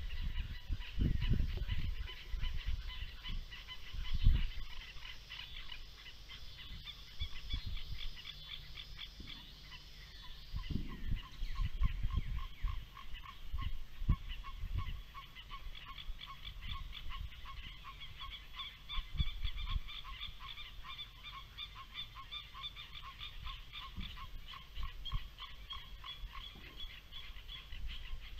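A large flock of geese honking, a dense chorus of overlapping calls throughout, with irregular low thumps underneath.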